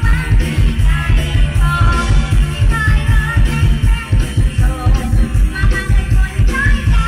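Live mor lam band music played loud through the PA: a fast, steady bass beat with a woman singing the melody over it.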